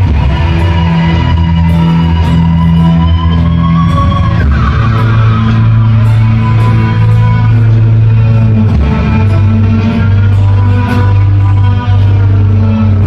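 Live band playing an instrumental passage with no singing: electric guitars and bass over drums, with keyboard, cello and violin. Deep bass notes are held for several seconds at a time.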